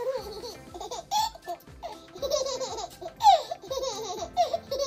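Baby laughing in repeated short bursts of giggles.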